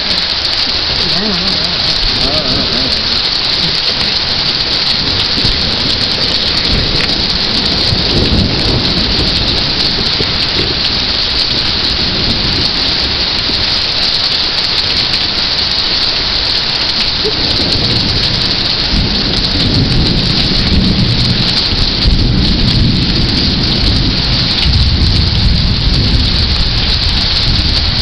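Heavy rain pouring steadily, a dense hiss throughout. A low rumble swells underneath a few times, longest through the second half.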